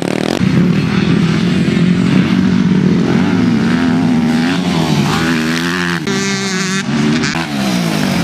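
Motocross dirt bike engines revving hard, the pitch rising and falling with the throttle through the gears, with a sharp, high rising rev about six seconds in.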